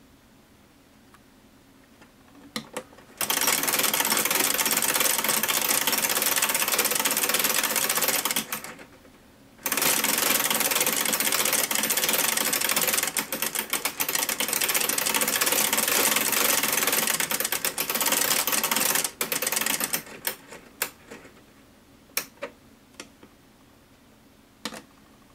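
COPAL quartz large flip clock with its time cards flapping over rapidly as the time is advanced by hand: a continuous fast clatter of flipping cards. It stops for about a second partway through, then runs on and breaks up into separate single flips near the end.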